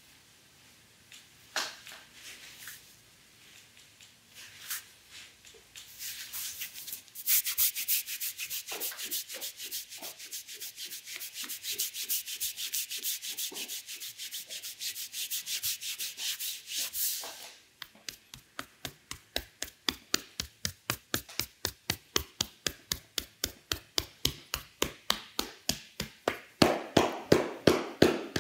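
A massage therapist's hands rubbing briskly over the body during a sports massage. After a few scattered strokes, a fast dense rubbing begins about six seconds in, then settles into a regular rhythm of about three strokes a second.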